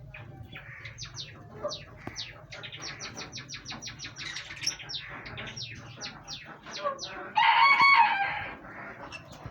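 A flock of green parrots calling, a rapid run of short, sharp chirps that drop in pitch, several a second. About three quarters of the way through comes one louder, longer, harsh call.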